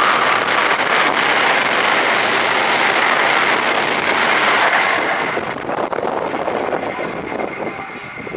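Amtrak passenger train's stainless-steel coaches passing at speed: a loud, steady rush of wheels on rail and moving air, which fades away after about five and a half seconds as the last car clears.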